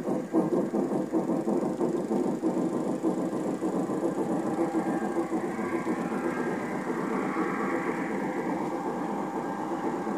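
G-scale garden-railway trains running: wheels click rapidly and rhythmically over the track as passenger cars pass close by, then the sound settles into a steadier mechanical running hum as the next locomotive and its cars come along.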